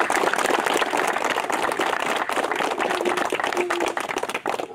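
A crowd of people applauding, a dense steady clapping that cuts off suddenly near the end.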